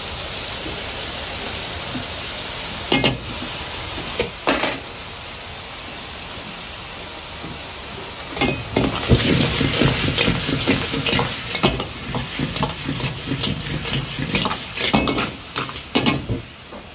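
Steady sizzling in a hot wok as sauce goes in, with two single ladle knocks a few seconds in. From about eight seconds in, a steel ladle stirs and tosses pebbles with chillies and aromatics: a rapid, irregular clatter of metal and stone over the sizzle.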